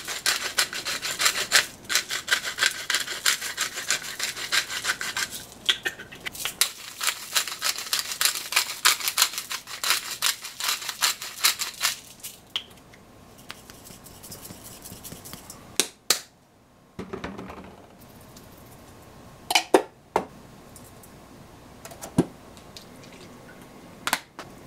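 A hand pepper mill grinding black pepper: a rapid stream of fine crunchy clicks that stops about halfway through. After that, only a few scattered knocks and taps.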